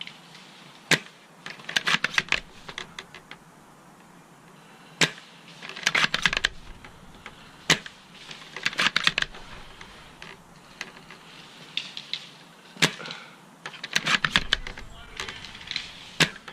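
Airsoft rifle shooting: four sharp shots a few seconds apart, each followed about a second later by a quick run of clicks that fits the bolt being worked to re-cock a bolt-action sniper rifle, then a fifth shot near the end.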